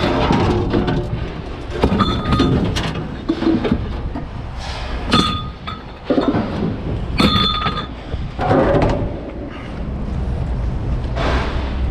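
Pieces of scrap metal being thrown or dropped onto other metal: several separate clanks, a few of them ringing briefly, over a steady low rumble.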